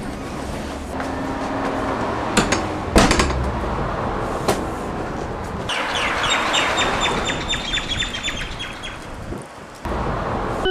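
Outdoor street noise with passing traffic, broken by a few sharp knocks, then a run of rapid high chirps, about five a second, lasting about three seconds.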